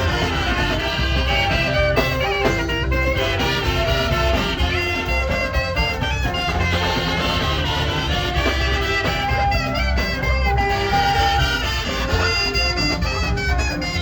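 Saxophone playing a melody with many quick note changes over a backing track with a steady bass beat.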